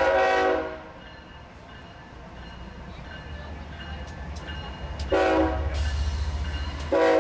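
Multi-tone air horn of a BNSF diesel freight locomotive sounding three blasts: one under a second long at the start, a short one about five seconds in, and another near the end. Between them the locomotives' diesel engines rumble and grow louder as the lead unit draws close, with rail and wheel noise rising at the same time.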